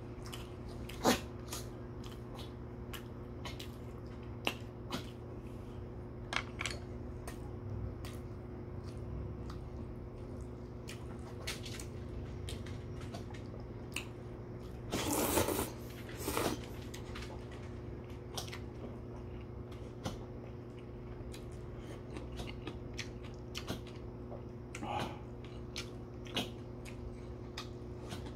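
Eating noodle soup with wooden chopsticks: scattered clicks and chewing sounds, with one longer slurp of noodles about halfway through. Under it runs the steady hum of an electric fan.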